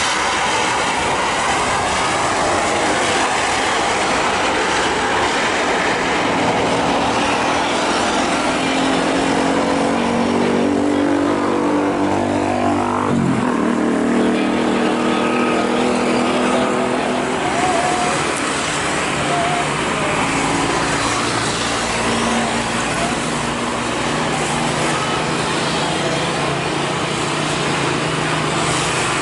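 Jet airliner's engines running loud as the aircraft passes close by, their tones dropping in pitch about halfway through as it goes past.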